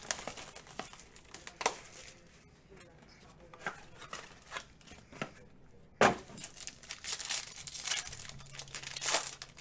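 Plastic wrap and packaging being torn and crinkled while a trading-card box is opened, with scattered sharp clicks and one loud knock about six seconds in.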